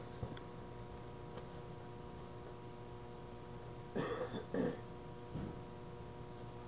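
Steady electrical hum made of several held tones, with a brief wordless vocal sound from a man about four seconds in.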